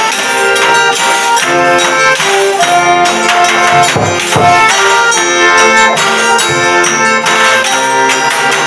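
Folia de Reis ensemble playing a rural Brazilian folk tune: the accordion holds sustained chords over plucked small guitars, a stick-beaten folia drum and a jingling tambourine.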